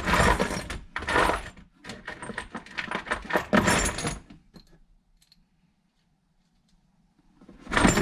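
Loose metal hardware and scrap clinking and rattling as it is rummaged through by hand. It comes in several dense bursts over about four seconds, goes almost quiet, then rattles again near the end.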